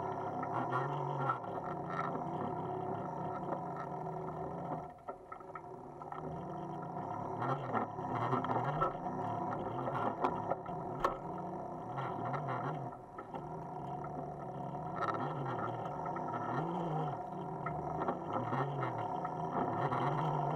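Electric bicycle's motor whining as it rides over a bumpy dirt trail, its low hum rising and falling over and over, with short rattles and knocks from the bike. The sound drops away briefly twice.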